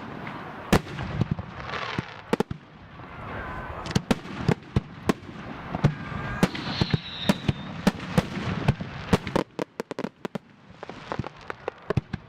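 Aerial firework shells bursting, a long run of sharp bangs that come in quick flurries, with crackling and noise between them.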